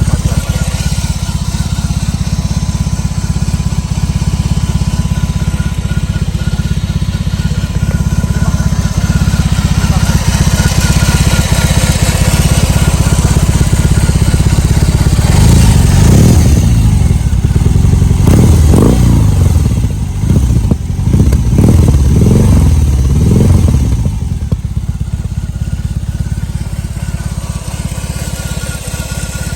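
BMW R18's boxer twin through a Vance & Hines aftermarket exhaust, idling with a deep steady beat; about halfway through it is revved in a string of quick throttle blips, the pitch rising and falling several times, then it settles back to idle.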